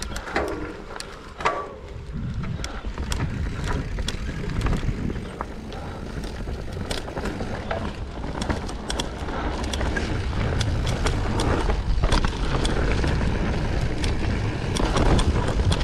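Mountain bike rolling down a dirt singletrack, with a continuous rushing noise and frequent sharp clicks and rattles from the bike over the rough trail. It grows louder toward the end.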